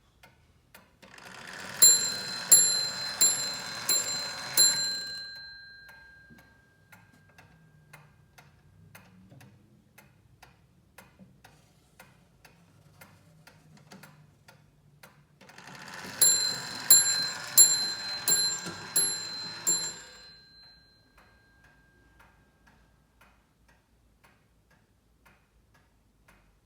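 Antique wooden mantel clock ticking steadily while its hammer strikes a bell in two runs of about five or six blows, roughly 0.7 s apart. Each run is preceded by the whir of the striking train, and the bell rings on, fading, after the last blow.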